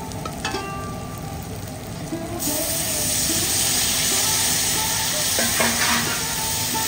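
Food sizzling as it fries in hot oil in a pan. The sizzle turns suddenly louder about two and a half seconds in and then holds steady.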